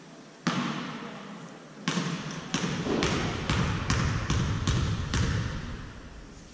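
A basketball bouncing on a gym floor: one bounce about half a second in, then steady dribbling, roughly two to three bounces a second, with each bounce echoing in the gym.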